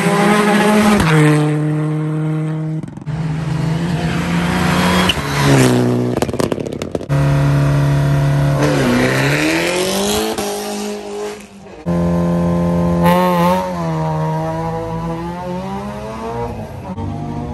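Rally car engines running hard at high revs, the pitch stepping with gear changes and sweeping down and back up about nine seconds in. The sound breaks off and changes abruptly a few times.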